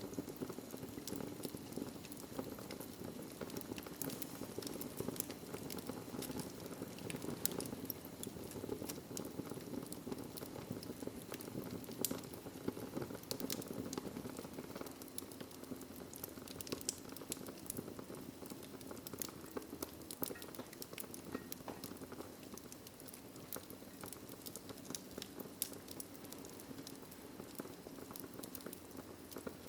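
Wood fire burning in a fireplace: a steady low rush of flame with frequent, irregular sharp crackles and pops.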